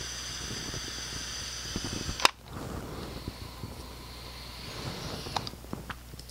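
A long, steady breath blown into the mouthpiece of a CMI Intoxilyzer S-D2 handheld breath tester: a hiss with a high steady whistle-like tone, which cuts off about two seconds in with a sharp click. A fainter hiss and a few light clicks follow.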